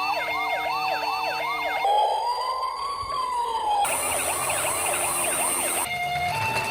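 Electronic sirens of toy ambulance minicars sounding together. They give quick repeating wail sweeps, about three a second, then one slow rise and fall, then quick sweeps again. Near the end they switch to a two-tone hi-lo.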